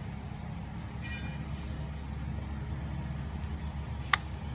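Thin pin charger plug pushed into a Nokia 107's charging socket, making one sharp click about four seconds in, over a steady low background hum.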